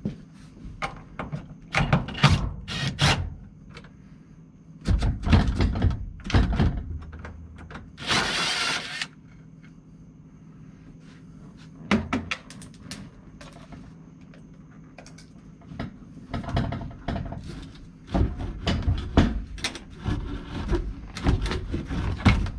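Metal clunks and knocks from a 1974 VW Super Beetle door and its hinge hardware being worked, in groups of sharp strikes, with a cordless impact driver running for about a second around eight seconds in.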